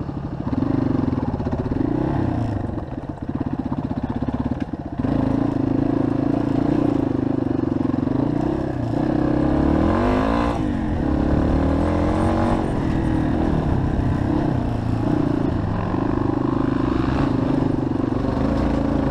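Yamaha WR250R single-cylinder four-stroke dirt-bike engine heard from a helmet-mounted camera, running under load on a trail. Its pitch holds steady for stretches, then rises and falls with throttle and gear changes, most clearly about halfway through.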